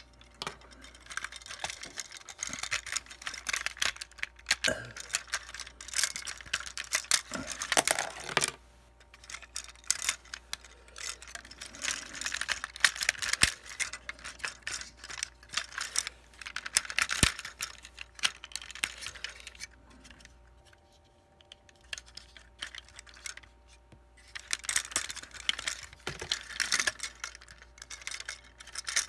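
Plastic clicks, snaps and rattles from a Transformers Six Shot action figure being handled and transformed, its parts knocking and clicking in quick clusters, with a lull about two-thirds of the way through.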